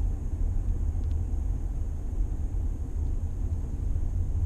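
Steady low rumble with no speech.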